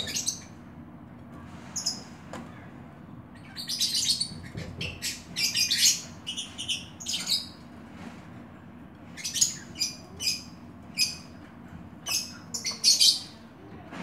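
Oriental magpie-robin (kacer) singing: quick runs of short, high, varied chirps and whistles in two spells, with a pause of a second or so between them.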